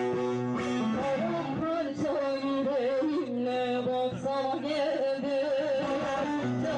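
Turkish folk music: a bağlama (long-necked saz) plays while a woman sings an ornamented, wavering melody into a microphone.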